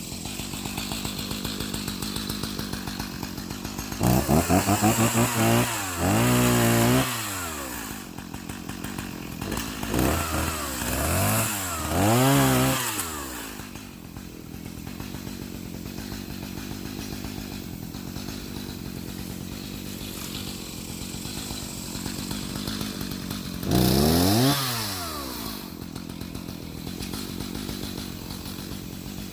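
Two-stroke chainsaw running at idle, opened up to high revs in several short bursts, the engine pitch climbing and falling back each time: in the first half a quick flutter then four or so revs, and one more a little over halfway through.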